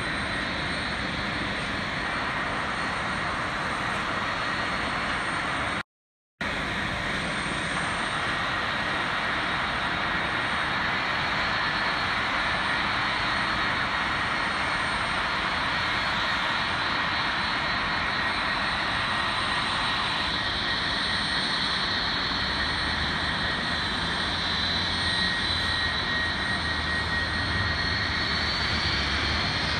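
Jet airliner engines at taxi power: a steady rushing roar with a thin high whine. The sound drops out for a moment about six seconds in, and a whine rises near the end.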